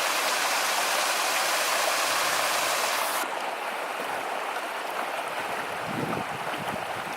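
Mountain creek water running over rocks. About three seconds in the sound changes abruptly to a softer, duller flow, with a few low rumbles near the end.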